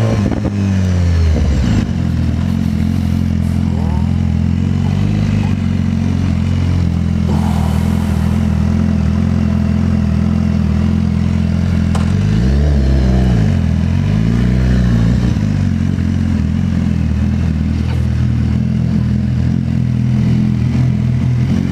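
Motorcycle engine running at a steady low speed. About halfway through, its pitch dips and comes back up twice.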